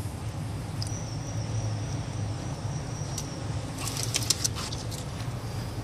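Steady low rumble, with a quick run of small clicks about four seconds in as a socket is worked by hand on the transmission's plastic fill plug.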